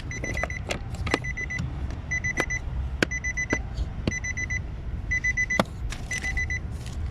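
Nissan X-Trail T31's dashboard warning chime beeping in quick bursts of about four short high beeps, once a second, with several sharp plastic clicks and knocks as the cabin filter cover is worked back into its latches.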